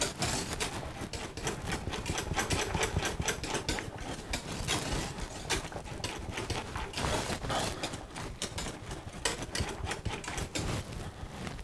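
Wire whisk beating porridge in a stainless steel saucepan: a fast, continuous clatter of the wires clicking and scraping against the metal pot.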